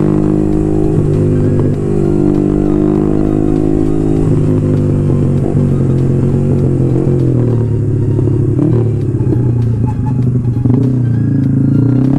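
Single-cylinder 150 cc sport motorcycle engine running under way, heard from the bike. Its note falls in the second half as it slows, and climbs again near the end.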